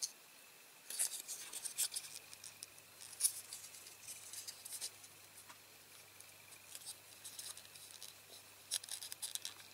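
Small clicks and crackles of a thin, flimsy plastic interior moulding from a diecast toy car being handled and pushed from behind with a cotton bud to press out its dents. The clicks come in clusters, busiest about a second in and again near the end.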